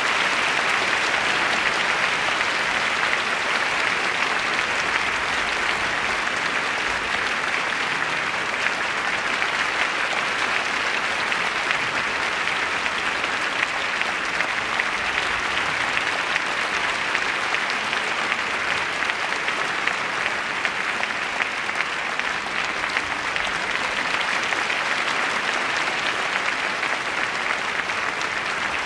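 Theatre audience applauding steadily during a ballet curtain call.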